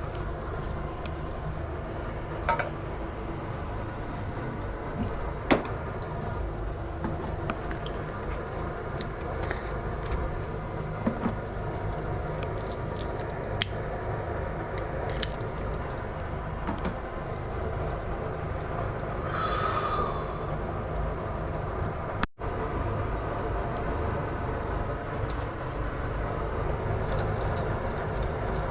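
Meat sizzling steadily in a pan over a low rumbling hum, with a few sharp clicks and knocks of utensils.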